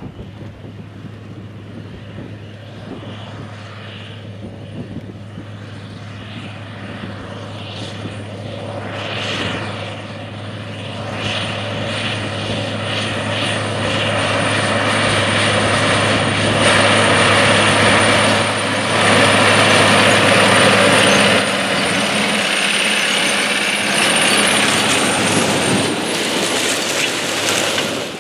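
Caterpillar Challenger 95E track tractor working a 45-foot Case IH 330 Tru-Tandem Turbo vertical tillage tool: a steady low engine drone under the rushing, rattling noise of the tillage gangs, growing louder as the rig comes close, with the low engine note falling away about three-quarters of the way through as it passes. The sound cuts off suddenly at the end.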